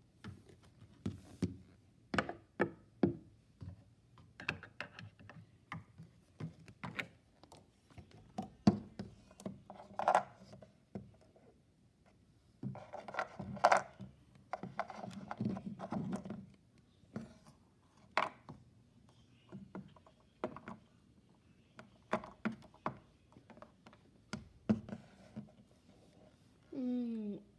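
Plastic toy tiger figure tapped and knocked against a wooden shelf and rocks as it is moved about by hand: a scatter of irregular clicks and thuds, with a stretch of rustling handling noise about halfway through.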